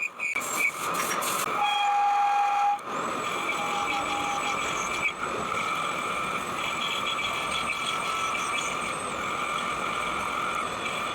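Metal lathe running, turning a taper on steel, with a steady mechanical whine; a brief clear tone sounds for about a second, about two seconds in.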